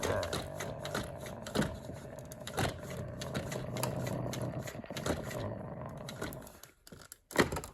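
Hard plastic toys clicking and knocking as they are handled, over a steady hum that fades about six and a half seconds in; a sharp knock comes near the end.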